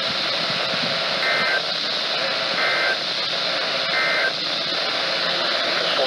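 NOAA Weather Radio received on a Midland weather radio's speaker: a steady hiss of static, broken three times by short two-tone SAME data bursts about a second and a half apart. These are the digital header of an Emergency Alert System Required Weekly Test.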